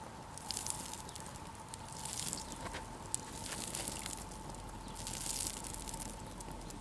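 Melted mutton fat sizzling on a hot steel grill grate over a wood fire as a brush daubs it on, in about four hissing bursts, with crackling from the fire.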